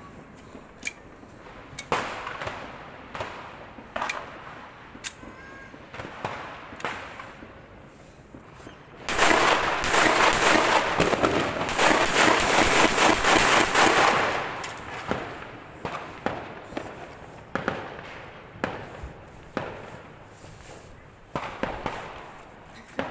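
Firecrackers going off: scattered single bangs, then about nine seconds in a dense string of rapid cracks lasting about five seconds, the loudest part.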